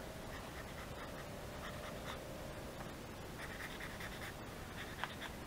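Faint scratching of a white marker pen's nib on sketch paper as it is tried out, before it has started to lay down ink. The scratching gets busier in the second half.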